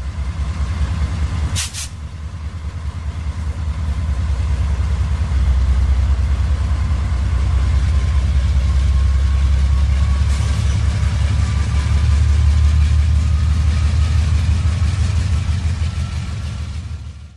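Diesel locomotive engine running with a deep, steady rumble that grows louder after about five seconds, and a short high hiss about a second and a half in.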